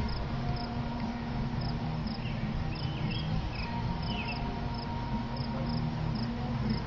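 Insect chirping steadily outdoors, short high chirps about twice a second, over a steady low rumble.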